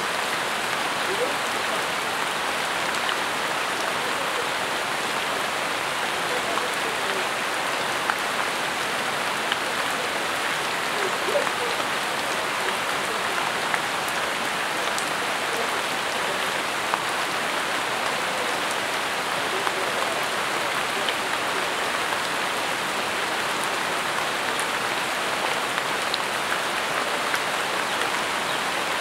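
Steady rain falling on leaves, with occasional single louder drops.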